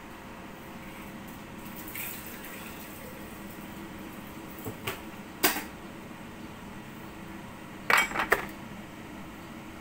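A few sharp clinks of a kitchen utensil against a wok: two about halfway through and a quick run of three near the end, the loudest. Under them runs a steady faint hiss from the water heating in the wok.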